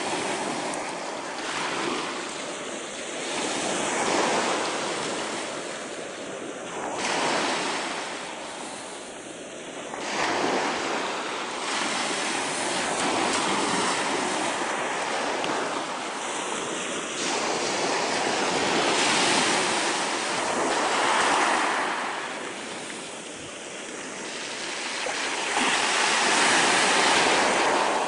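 Surf breaking and washing up a pebble beach, the sound surging and falling back every few seconds as each wave comes in.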